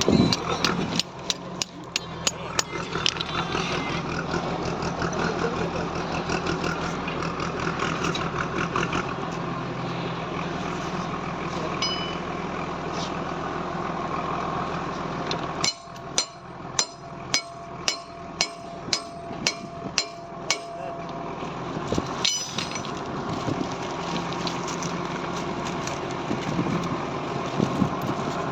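An engine running steadily with voices in the background, and two runs of sharp, evenly spaced knocks, about two a second: one at the start and one a little past the middle.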